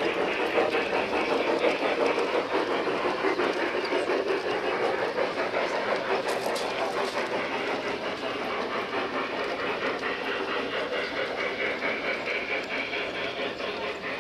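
Large-scale garden railway model steam locomotive and train running along the track: a steady dense clatter of wheels over the rails, slowly fading.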